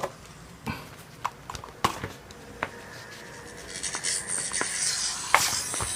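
Scattered clicks and taps of keys being pressed on a small handheld wireless keyboard, about seven in all, with a hissing noise that rises from about four seconds in.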